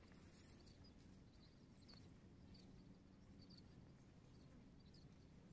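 Near silence: faint outdoor background.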